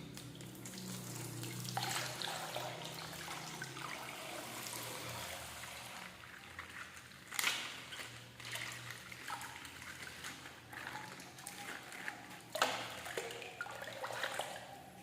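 Faint liquid sounds, trickling and dripping, with a few short sharp clicks, the loudest about seven and a half and twelve and a half seconds in.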